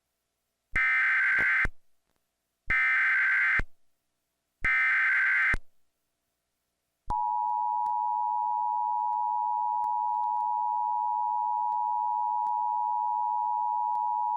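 Emergency Alert System alert tones played back through a VCR: three one-second bursts of SAME header data, a buzzing digital warble, with a pause after each. From about seven seconds in comes the steady two-tone EAS attention signal.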